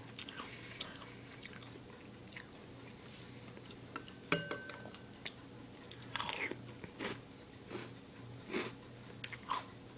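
Faint, intermittent chewing and crunching of a mouthful of Reese's Puffs cereal, with a sharp click about four seconds in.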